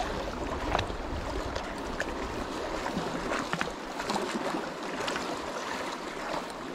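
Small sea waves washing and sloshing over rocks at the water's edge: a steady hiss of moving water.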